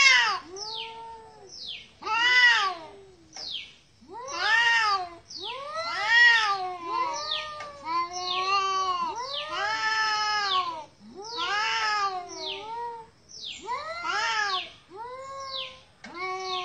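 Two domestic cats yowling at each other in a standoff: long, wavering calls that rise and fall, one after another with short gaps and at times overlapping. It is the threat yowling of cats on the verge of a fight.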